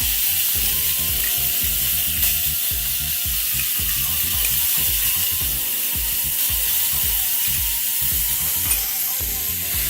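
Rib-eye steak sizzling in butter and canola oil in a hot grill pan, a steady hiss. Underneath it runs a quick, uneven series of low knocks, a few a second.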